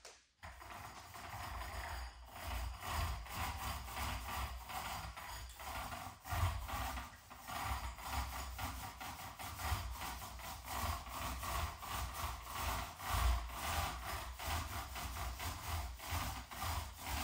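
Paint roller loaded with wet primer being rolled up and down a wall in repeated strokes: a steady, rhythmic rubbing that starts a moment in.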